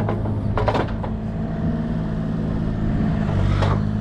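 An engine running steadily with a low, even hum. A few sharp knocks sound about half a second in and again near the end.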